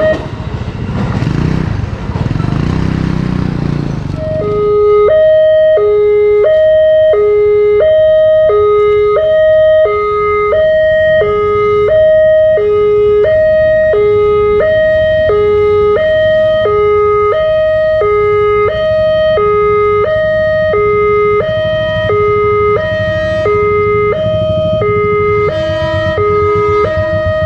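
Railway level-crossing warning alarm (LEN pole-mounted electronic alarm) sounding, alternating a low and a high tone about once a second, warning that a train is at or near the crossing. During the first four seconds it is masked by the rumble of an electric commuter train running past.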